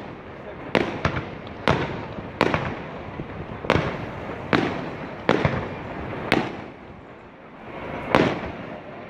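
Fireworks bursting overhead: about nine sharp bangs at uneven intervals, each trailing off in an echo, over a continuous rumble, with a short lull a little after the middle before one last loud bang near the end.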